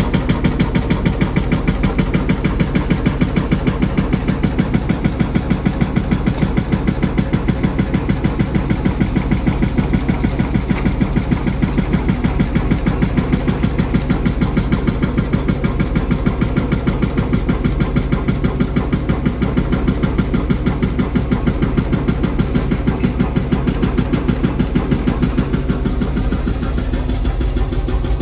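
Heavy diesel engine of an excavator or dump truck running steadily at work, with an even, rapid pulse.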